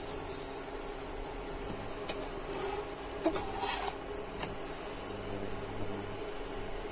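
Steady electrical hum and whine of an induction cooktop heating a non-stick pan. About two to four and a half seconds in there are a few light clicks and a scrape of a steel slotted spatula against the pan as the paratha is turned over.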